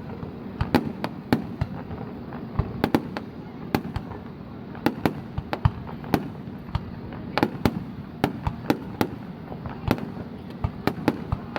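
Fireworks display: a rapid, irregular run of sharp bangs from shells bursting, several a second at times, over a steady background din.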